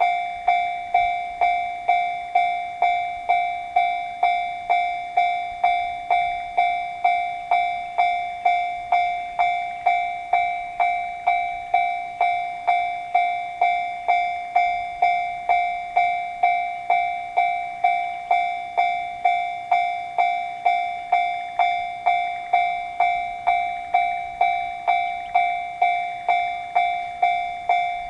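Japanese railway level-crossing alarm ringing its "kan kan" warning. It goes in even, bell-like strikes of one fixed pitch, about two a second, each fading quickly, with no change in pace.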